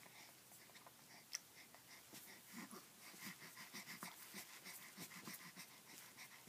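Faint, quick breaths and small grunts from a two-month-old baby kicking her legs, about four a second, starting about two seconds in.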